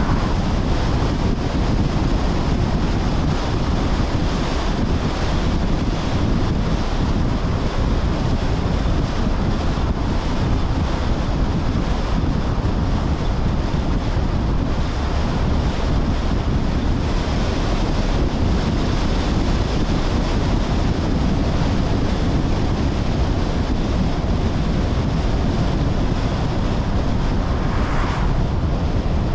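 Steady wind rushing over the microphone of a car-mounted camera while driving, with low road noise underneath. Near the end an oncoming car passes with a brief whoosh.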